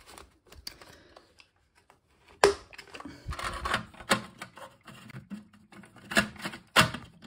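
Irregular plastic clicks and knocks of a toilet flush valve being snapped back together and refitted in the cistern, with one sharp click about two and a half seconds in the loudest.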